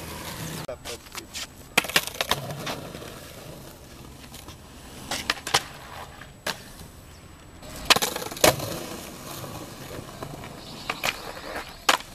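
Skateboard wheels rolling on concrete, broken by a series of sharp clacks from the board popping and landing during tricks.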